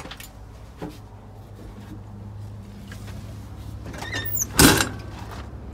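A heavy truck cab door squeaks and shuts with a loud clunk about four and a half seconds in, over a steady low hum.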